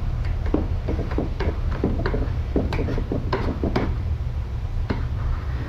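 Hands and a plastic squeegee working a vinyl decal onto a plastic ATV fender: a run of irregular short scrapes, crinkles and taps, over a steady low rumble.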